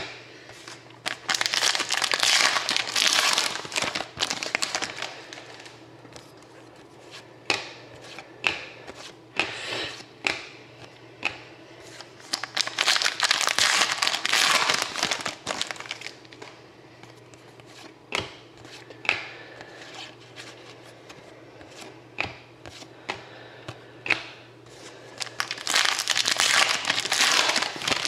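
Foil trading-card pack wrappers crinkling and tearing in three long bouts, with short clicks and taps of card handling in between.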